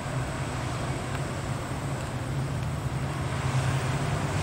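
WDP-4D diesel-electric locomotive's two-stroke V16 engine running with a steady low drone as it approaches, growing louder over the last second or so.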